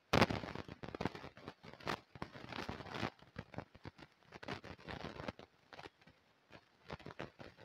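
Irregular crackling and rustling with sharp clicks. It starts abruptly, is densest over the first three seconds, then thins to scattered clicks.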